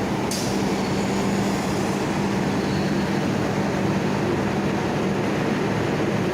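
Micronizing grinding mill running steadily: a constant electric-motor hum under an even rushing noise, with a brief high hiss about a quarter-second in.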